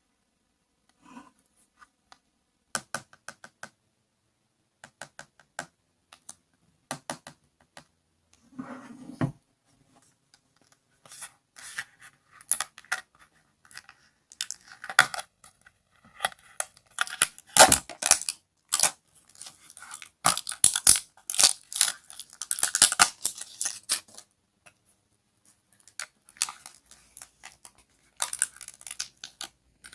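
Crisp crackling and crunching from a squishy ice toy being squeezed and broken by hand. It begins as scattered clicks and builds to dense crunching bursts after about ten seconds.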